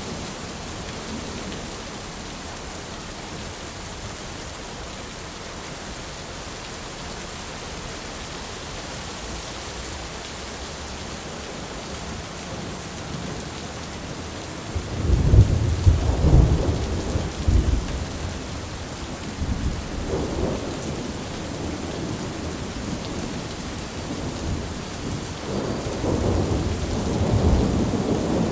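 Thunderstorm: steady rain falling, with a loud, low roll of thunder about halfway through that rumbles on for several seconds, and another building rumble near the end.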